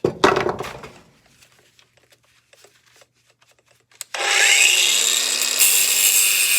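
Metal parts clattering and knocking, then about four seconds in a handheld power tool's motor starts suddenly, runs up in pitch and holds steady at speed, likely cutting or grinding into a metal part to check whether it is brass or copper.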